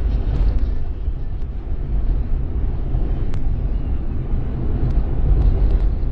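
Steady low rumble of a vehicle driving along a snow-covered road: engine and tyre noise.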